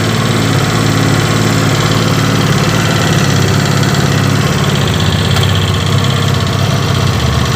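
Kasinski Comet GTR 250 motorcycle engine idling steadily with a rapid ticking, 'tec, tec, tec', from inside the freshly rebuilt engine; the tick has been traced to its bottom end.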